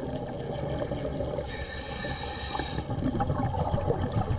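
Underwater sound of a diver's air bubbles gurgling over a crackling background. A thin high whine joins in about one and a half seconds in and stops about a second later.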